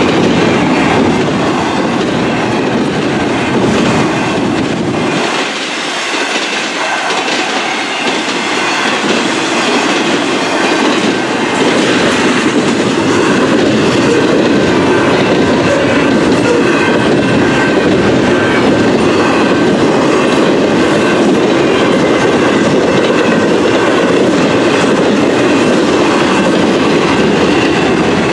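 Intermodal freight train of double-stack container and trailer cars rolling steadily past: continuous wheel-and-rail rumble with clickety-clack over the rail joints.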